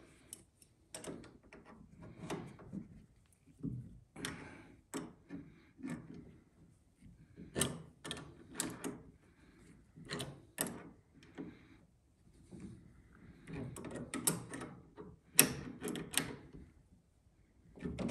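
Steel wrenches clicking and scraping on a brass quick-disconnect fitting as it is tightened onto a compressed-air line: a string of irregular short clicks and knocks.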